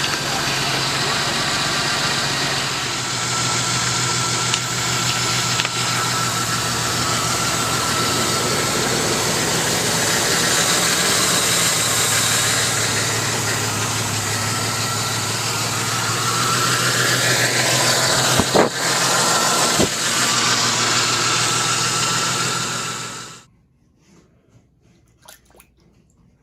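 A small electric motor running with a loud, steady rush of air and a constant hum, switched off abruptly near the end.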